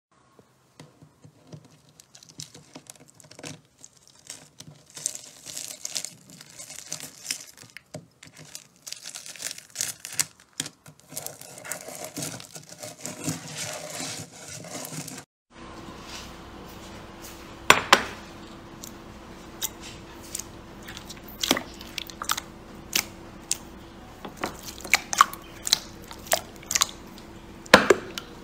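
Crunchy bead-filled slime crumbled between fingers, giving a dense run of fine crackling and crunching. After a cut about halfway through, clear jelly slime is stretched and pressed, with about a dozen sharp, separate pops as air pockets in it burst.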